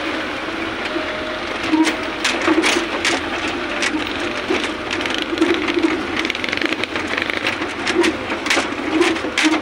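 Ride noise of a vehicle lurching over a rough, rutted mud road: a steady running noise with frequent irregular rattles and knocks as it jolts.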